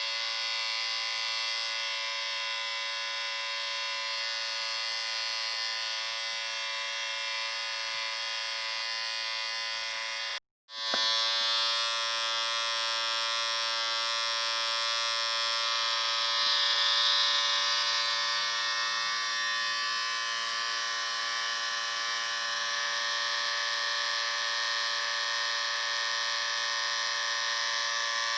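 Electric shaver running with a steady, even buzz. It cuts out for about half a second roughly ten seconds in, then starts again at a slightly different pitch.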